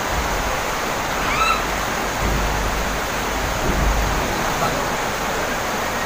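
River water rushing steadily over rocks in shallow rapids. A low rumble swells between about two and four seconds in, and a brief high-pitched sound rises about one and a half seconds in.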